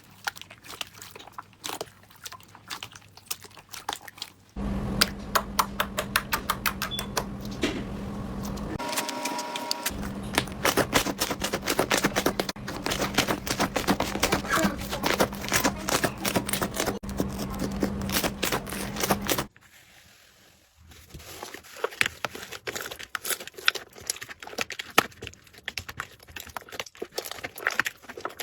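Slime being squeezed and pressed by hand, giving off rapid crackling clicks and pops. From about four seconds in, a steady low hum runs under the clicks; it stops near twenty seconds, after which the clicks go on more sparsely.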